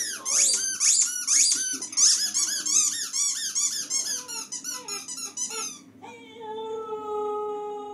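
Dog howling in a rapid string of short, high-pitched, rising-and-falling cries, about three a second, growing fainter. About six seconds in, a single long steady note takes over.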